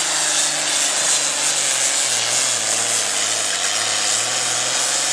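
John Deere super farm pulling tractor's turbocharged diesel engine running at full power under the load of the sled, with a strong hiss over a deep engine note. About two seconds in the note drops as the engine pulls down under the load.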